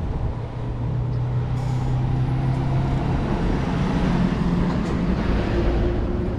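A heavy vehicle passing over the bridge: a steady low engine hum under a rushing noise that swells to a peak about four seconds in, then fades.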